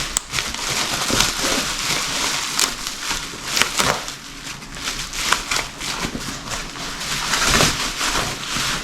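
Irregular crinkling and crackling with many sharp clicks.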